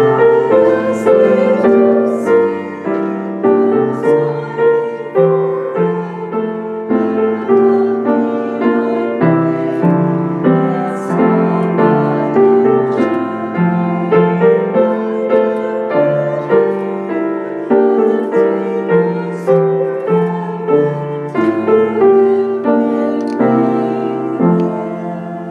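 Piano music: a slow, gentle melody played note by note, fading out near the end.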